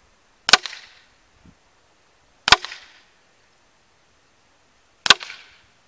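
Three shots from a .22 Benjamin Nitro Piston Titan GP break-barrel air rifle firing at a paper target, about two to two and a half seconds apart. Each is a sharp crack with a brief ringing tail.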